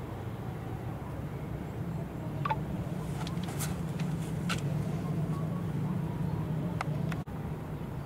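A steady low engine drone that swells a little from about two and a half seconds in, with several short high chirps scattered over it. The sound cuts out for an instant shortly before the end.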